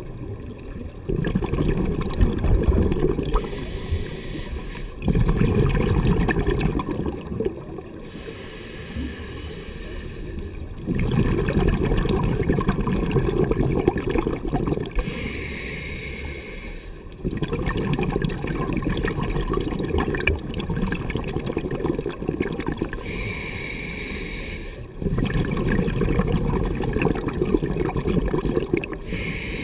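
Scuba diver breathing underwater through a regulator: a high hiss on each inhalation alternates with a longer burst of exhaled bubbles, about five slow breaths.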